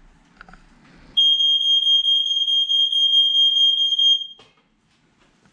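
Residential smoke alarm being tested: one steady high-pitched tone lasting about three seconds, starting about a second in and then cutting off.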